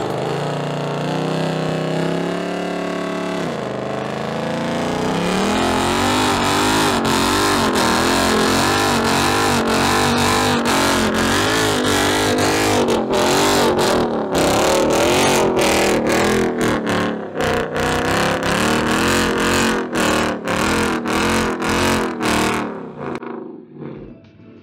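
Ford Mustang engine revving hard during a burnout, rear tyres spinning. The revs climb about five seconds in and stay high, wavering, and in the second half they are broken again and again by sharp cuts before fading near the end.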